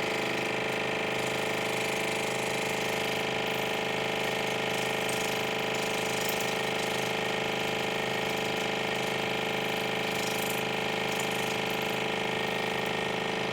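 Water pick (oral irrigator) pump running at a raised power setting, a steady buzz that does not change.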